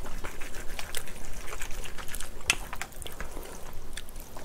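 Wooden chopsticks stirring and lifting black bean instant noodles coated in thick red spicy sauce in a paper bowl: wet, sticky squishing with irregular light clicks.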